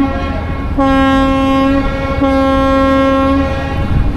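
Great Lakes freighter's deep air horn sounding two blasts of about a second each, with a short gap between them. These are the short blasts that close a captain's salute of one long and two short.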